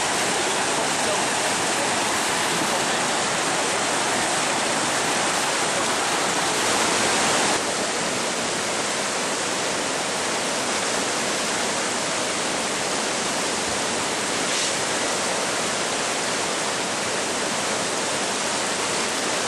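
Whitewater river rapids rushing, a loud, steady, even roar of churning water. It drops slightly in level about seven and a half seconds in.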